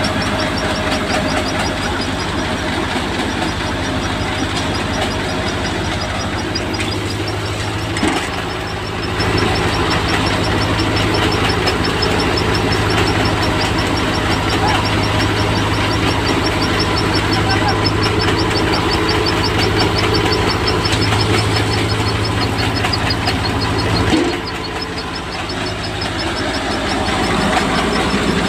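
Soybean harvesting machine running steadily, with a low engine hum and a fast, even rattling ticking. The noise briefly drops about eight seconds in and again near the end.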